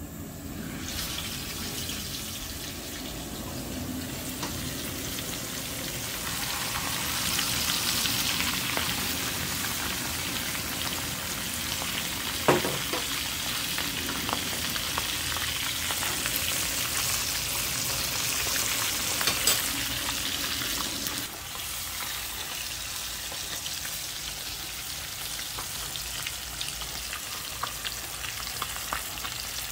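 Seasoned snapper frying in hot oil in a pan: a steady sizzle and crackle that swells about a second in as the fish goes into the oil. A single sharp click sounds about halfway through, and the sizzle eases a little about two-thirds through.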